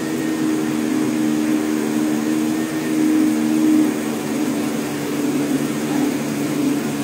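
High-powered countertop blender motor running steadily under load, churning a thick vegetable and garlic mash into a uniform paste.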